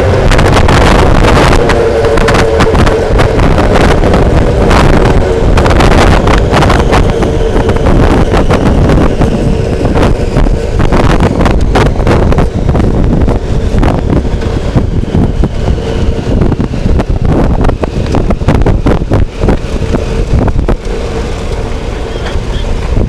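Heavy wind buffeting on a dragster's onboard microphone as the car coasts and slows with its parachutes out, with rolling rumble and a steady hum under it for the first several seconds. The buffeting eases as the car slows to walking pace near the end.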